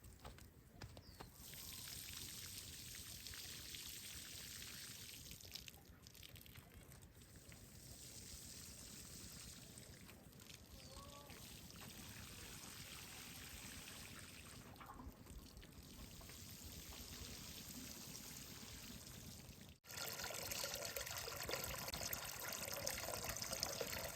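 Faint water trickling and pouring, steady. About twenty seconds in it cuts abruptly to a louder, rougher noise.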